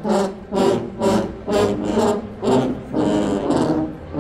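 Marching band playing a rhythmic stand tune, with short accented chords struck about twice a second.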